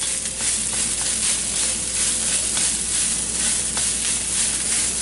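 Day-old cooked rice sizzling steadily in a very hot wok while a rice paddle stirs it and breaks up clumps, with a few light scrapes and taps of the paddle against the pan.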